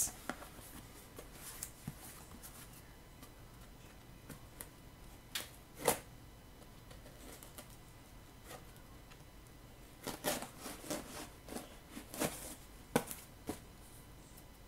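Packing materials being handled: short rustles and scrapes of cardboard and bubble wrap as a taped cardboard box is lifted out of a carton. A couple come about five to six seconds in and a cluster from about ten to thirteen seconds, with quiet between.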